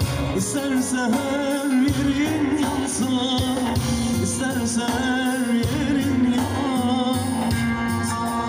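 Band music in Turkish folk style: a wavering, ornamented melody line over a held low note and a steady beat.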